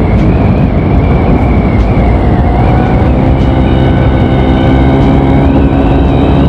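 Honda Beat scooter's single-cylinder engine running at a steady riding speed through an MP7 'hiung' aftermarket exhaust, a thin high whine riding over the engine note. The sound is not too noisy, close to stock.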